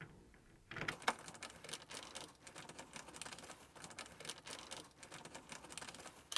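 Screwdriver turning a screw into the rear bracket of a tumble dryer's top panel: a faint, quick run of small irregular clicks, starting about a second in.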